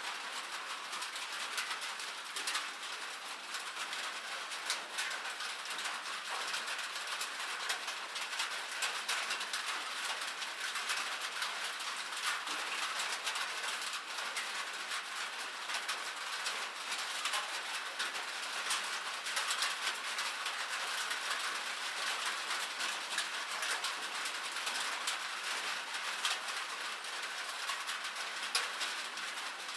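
Light rain falling steadily: a dense patter of small drops with many fine ticks, even in level throughout.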